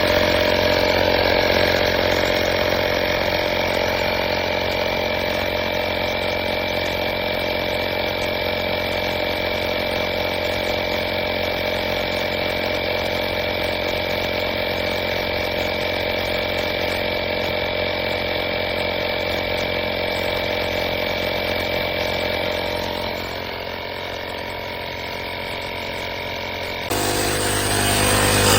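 AstroAI 12V portable electric tire inflator's compressor running with a steady buzzing drone. It gets slightly quieter about 23 seconds in, then switches abruptly to a louder, lower drone near the end.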